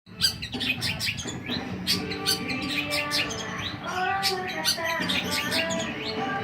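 Long-tailed shrike (cendet) chirping and twittering, a dense run of quick, sharp calls.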